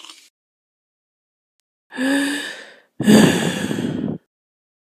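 A character's voice making two breathy sounds: a short one about two seconds in, then a longer, louder exhale.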